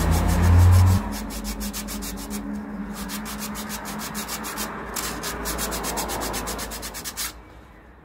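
Sandpaper rubbed by hand over a carved hazelnut-wood cup in rapid back-and-forth strokes: the final smoothing of the cup's surface. A loud low hum sounds under the strokes for the first second, and the strokes stop about seven seconds in.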